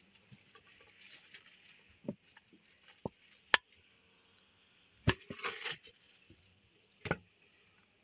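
Scattered clicks and knocks of a knife blade and a steel bowl handled against rock, about six of them, the sharpest about three and a half seconds in, over a faint steady high hiss.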